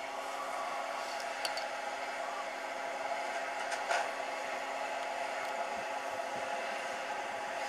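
John Deere combine running as it drives slowly, heard as a steady whirring drone with a constant low hum, with a few faint clicks about one and a half and four seconds in.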